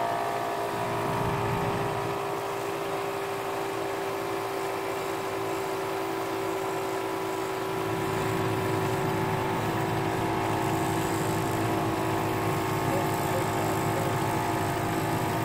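12-volt portable air compressor, wired to the vehicle battery, running with a steady hum as it inflates a 4WD tyre toward 40 psi, over the low rumble of the idling engine.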